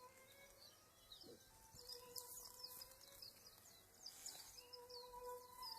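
Near silence: faint outdoor ambience with many quick, high chirps and a few faint held tones.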